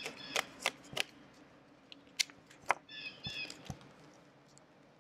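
Duct tape being pulled off the roll and torn: a series of short, sharp rips and crackles.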